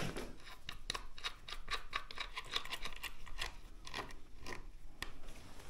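Many light, irregular clicks and ticks of hand work on an e-scooter's front wheel and fender, closest together around the middle.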